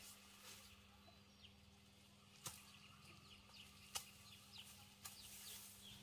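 Near silence, with two sharp clicks about a second and a half apart and faint, brief high chirps.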